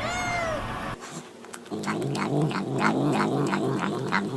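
Cat eating with a low, repeated pitched murmur, the "nom nom nom" sound some cats make over food, with quick chewing clicks over it. The murmur starts about a second and a half in, after a short rising-and-falling call at the very start.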